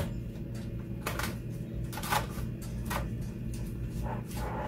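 Plastic cling film crackling in several short bursts as it is stretched over a glass bowl and pressed down around the rim, over a steady low background hum.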